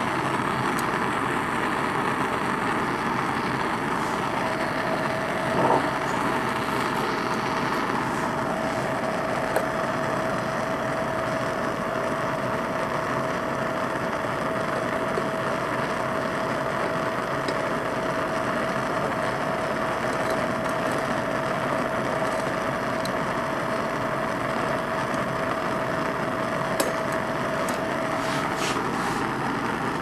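Bernz-O-Matic propane hand torch firing into a small pipe furnace: a steady roar of flame. A faint steady whistling tone joins about four seconds in and fades near the end, with a few light clicks.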